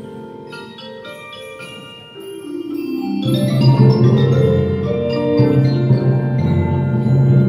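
Marimba played with mallets in a performance: soft, higher notes at first, then the music grows louder and fuller with deep low notes from about three seconds in.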